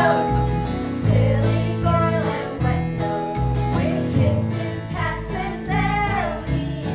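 Live band of upright bass and acoustic guitar playing a song, with voices singing along.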